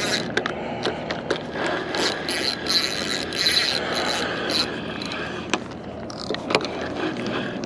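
Fishing reel being cranked steadily with its gears clicking and whirring as a hooked fish is reeled in.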